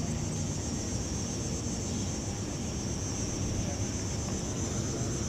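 A continuous high-pitched buzz of summer insects over a low, steady rumble.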